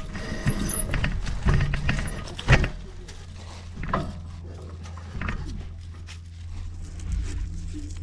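Mountain e-bike rattling and knocking as it rides over a rough, leaf-covered dirt trail, over a steady low rumble. The sharpest knock comes about two and a half seconds in, and the knocks thin out in the second half.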